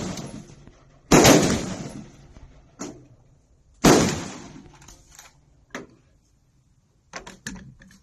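Two rifle shots from a Smith & Wesson M&P15 Sport II AR-15 in 5.56 mm, about a second and about four seconds in, each trailing off over a second or so. Several fainter sharp cracks fall between them and near the end.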